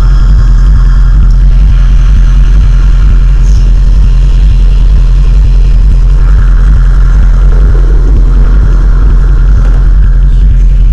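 Loud, steady low droning rumble of a dance performance's electronic soundtrack, rough and engine-like, with fainter higher tones fading in and out, strongest again from about six to ten seconds in.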